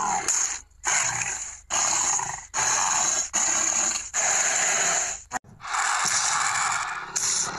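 Computer-game-style dinosaur sound effect: a run of raspy, hissing snorts and growling breaths, a little under one a second, each cut off by a short gap.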